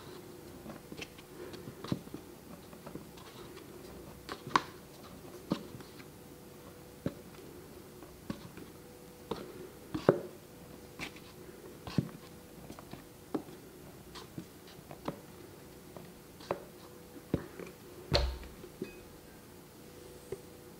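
Flour being poured slowly from a plastic canister into a bowl, with light irregular clicks and taps of the plastic container, and a louder thump near the end as the canister is set down. A faint steady hum runs underneath.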